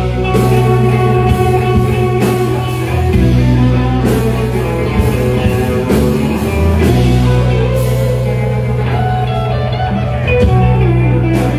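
Live rock band playing: electric guitar and saxophone over steady bass and drums with cymbal hits.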